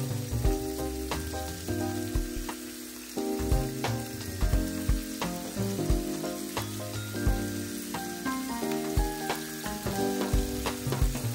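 Music: held chords over a bass line and a regular drum beat, with a constant crackling hiss underneath.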